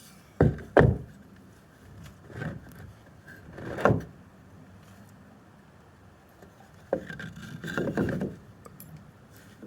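Wooden boards being handled: two sharp knocks shortly after the start, then scraping and bumping of wood, with a burst of knocks and scrapes around two-thirds of the way through.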